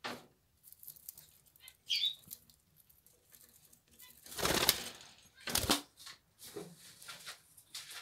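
Budgerigars pecking at a millet spray, with light scattered clicks of seeds being cracked. One short falling chirp comes about two seconds in, and two loud bursts of wing flapping come a little past the middle.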